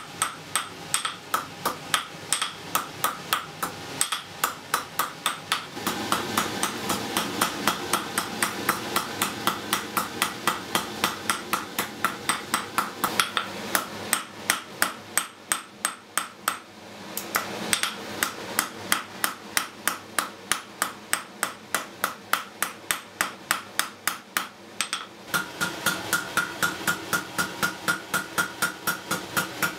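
Blacksmith's hand hammer striking a red-hot iron bar on an anvil, a steady run of about three blows a second, each with a ringing note from the anvil, with a brief lull about halfway through.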